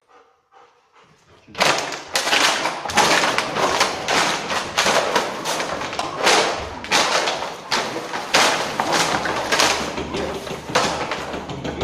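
Loud, dense rustling with many sharp thumps, starting about one and a half seconds in.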